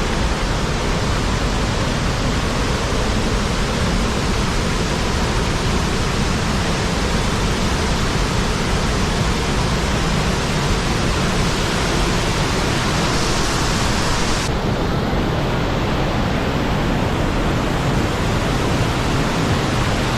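Steady, loud rush of falling water, as at a waterfall. About three-quarters of the way through, the highest hiss drops away suddenly while the rush goes on.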